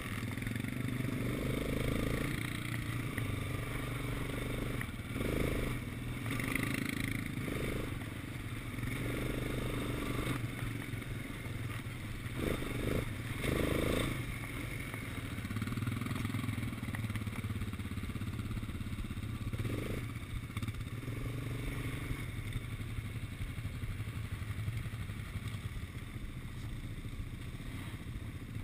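Quad bike (ATV) engine running steadily at low speed while the bike is ridden over a dirt track, with mild surges as the throttle changes.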